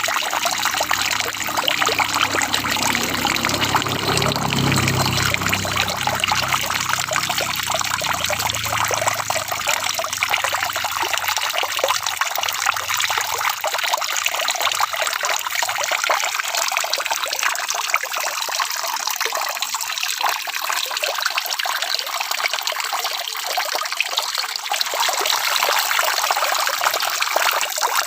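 Steady rain falling, a dense, even patter of drops. A faint low rumble runs beneath it for the first several seconds, then fades.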